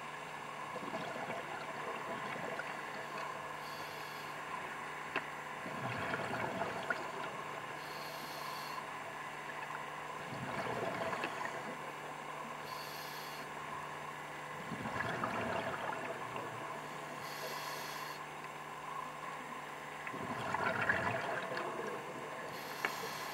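Scuba diver breathing through a regulator underwater: a short hiss on each inhale, then a louder bubbling rumble of exhaled bubbles, repeating about every four to five seconds over a steady faint hum and fine crackling.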